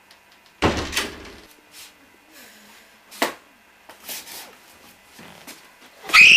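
A door bangs shut about half a second in, followed by a few lighter knocks and clicks. Near the end comes a loud, high-pitched cry that rises and falls.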